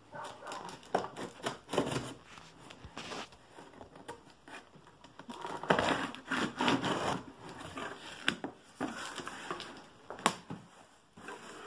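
Scissors cutting through packing tape on a cardboard box, with cardboard rubbing and scraping as the box is handled, and a few sharp clicks in the second half.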